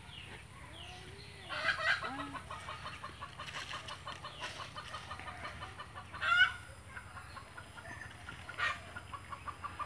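Chickens clucking in a steady run of short notes, with a few louder hen calls, the loudest about six seconds in.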